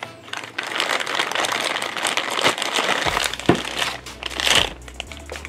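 Clear plastic bag crinkling as it is opened and the figure is pulled out of it: dense crinkling for about three seconds, then a couple of shorter rustles.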